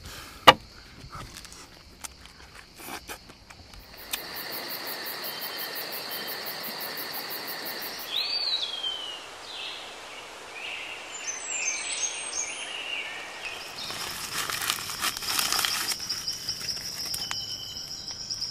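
Outdoor nature ambience: insects trilling steadily on high pitches, with bird calls, one of them a falling call about halfway through. A few knocks come in the first seconds and a spell of rapid clicking about three quarters of the way in.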